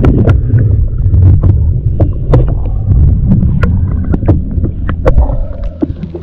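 Strong gusty wind buffeting the microphone on a kayak in choppy water, with irregular sharp slaps of waves against the hull.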